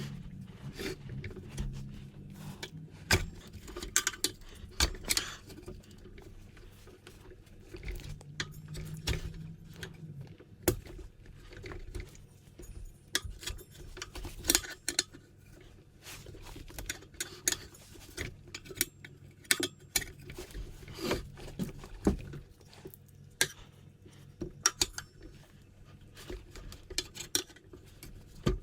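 Scattered light clicks, clinks and knocks of hands and metal tools working an inner tube into a motorcycle tire on its wheel rim, irregular throughout.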